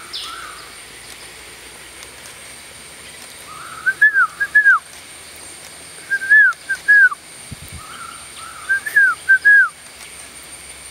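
Blue-winged pitta calling: loud, clear whistled phrases of two or three arched notes, given three times about two and a half seconds apart.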